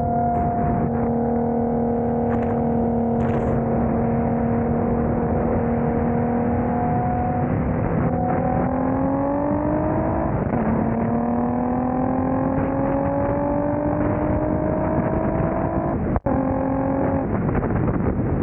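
Audi B5 S4 engine running at a steady pitch, then revving up, dropping sharply in pitch about ten seconds in as a gear changes, and climbing again. The sound cuts out for an instant near the end.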